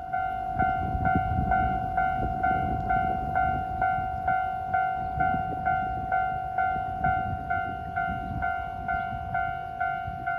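Level-crossing alarm ringing, a clear pitched tone struck again a little over twice a second, over a low rumble.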